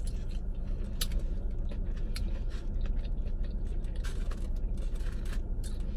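A person chewing and biting fried chicken close to the microphone, with a few sharp crunches and mouth clicks over a steady low hum.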